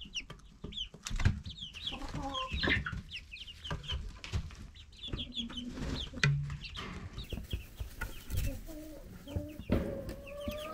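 Chickens clucking, with many short high cheeps from the young pullets, plus scattered sharp clicks.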